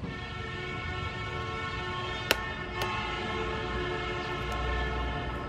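A sharp crack about two seconds in, with a weaker tap just after: an egg being knocked open on the rim of an aluminium soup pot. Throughout, a steady horn-like tone of several pitches starts and stops abruptly.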